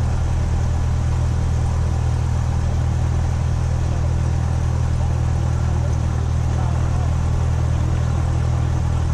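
Cessna 172SP's four-cylinder Lycoming engine and propeller running steadily at idle after start, heard from inside the cabin as an even low drone.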